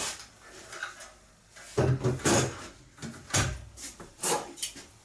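A few short knocks and rattles of hard objects being handled in a small room, loudest about two seconds in, with another about a second later.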